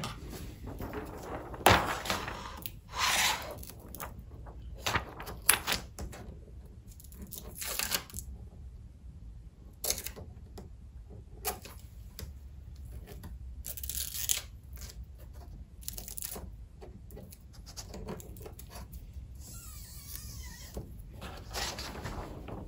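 Irregular short handling noises as hands cut away a small piece of double-sided tape covering a hole on a screen-printing frame, most of them in the first eight seconds.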